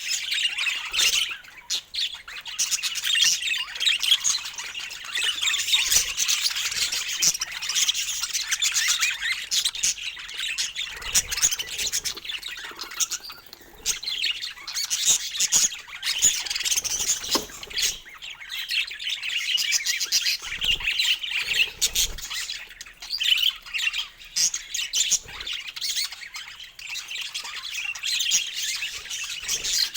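Budgies chattering, chirping and squawking without pause.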